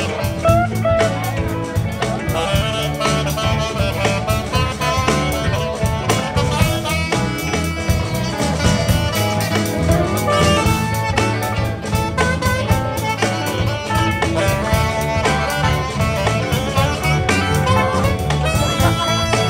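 Live blues band playing an instrumental passage: drums and electric guitars keep a steady groove while a lead instrument plays a melodic solo line over them.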